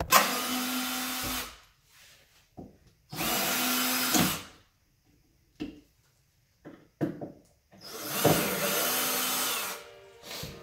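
Cordless drill running in three bursts of one and a half to two seconds each, with a few light knocks in between.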